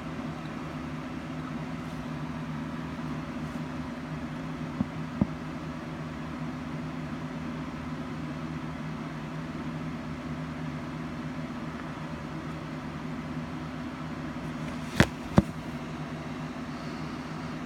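Steady low mechanical hum, like a fan or air conditioner running, with two pairs of sharp clicks, one pair about five seconds in and a louder pair about fifteen seconds in.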